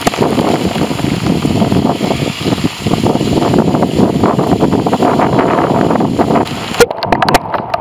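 Heavy rain pelting a Kodak Pixpro AZ252 camera and its built-in microphone, a loud, muffled, crackling rush from water on and in the mic. Near the end it changes abruptly to thinner, sharper crackles.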